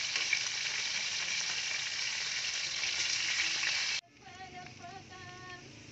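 Chicken wings frying in hot oil in an aluminium wok: a loud, steady sizzle. It cuts off abruptly about four seconds in, leaving a much quieter sound with faint, voice-like tones.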